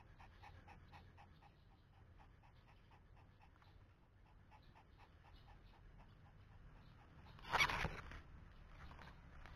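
Pomeranian panting quickly with its tongue out, about five short breaths a second. A brief loud rustle comes about seven and a half seconds in.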